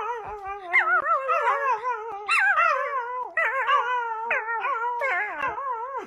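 A puppy howling in a long, wavering cry whose pitch wobbles up and down, broken into short phrases with brief breaks.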